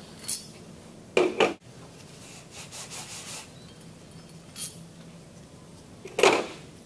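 Stainless steel pump parts and bolts being handled during disassembly: a sharp click, then two knocks about a second in, a stretch of rubbing and scraping, another click, and a louder metal knock near the end as pieces are set down on the table.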